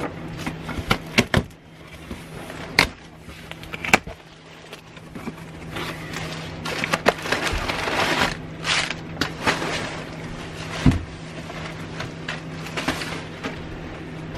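A cardboard shipping box being opened and unpacked by hand: sharp knocks and taps against the box, then crackling, rustling stretches of cardboard and plastic packing being pulled about, with a steady low hum underneath.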